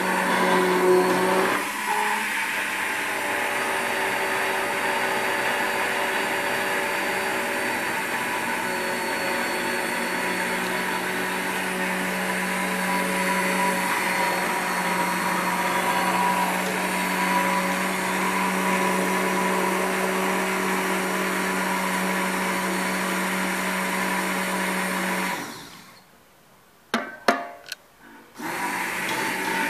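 Hand-held immersion blender running steadily in a pot of hot milk and roux, blending a white sauce while it cooks and thickens. It cuts out near the end, a few sharp clicks follow, and then it starts up again.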